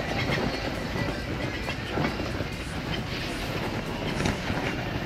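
Loaded touring bicycle rolling over cobblestones, a steady rattling clatter of wheels and luggage.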